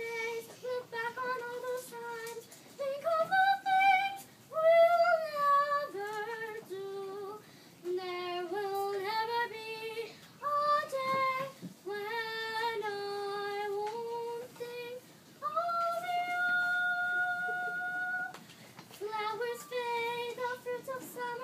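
A young girl singing solo in phrases, holding one long high note for about three seconds about three-quarters of the way through.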